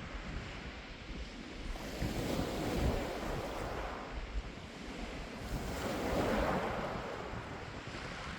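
Sea waves breaking on a pebble beach and washing over the stones. Two waves swell up, about two seconds in and again about six seconds in, over a steady surf noise.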